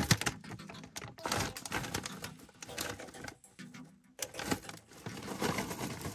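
Plastic snack wrapper crinkling and crackling as it is handled and opened, in bursts of dense clicks with short pauses between.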